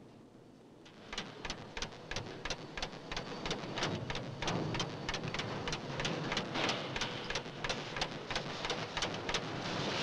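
Portable spot-welding gun working along a car body panel seam: a rapid, uneven run of sharp crackles, roughly four a second, over a steady hiss, starting about a second in.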